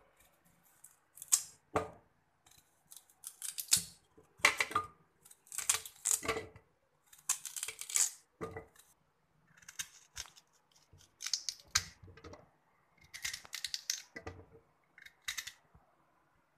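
Knife cutting through carrot and the chunks dropping into a plastic blender jar: a string of short, irregular crunches and knocks with pauses between them.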